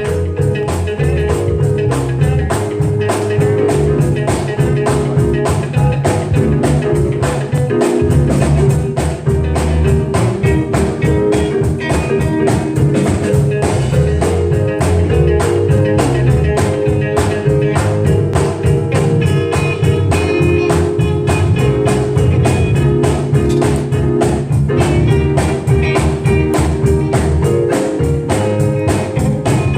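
Instrumental music with guitar over a steady bass line and drum beat.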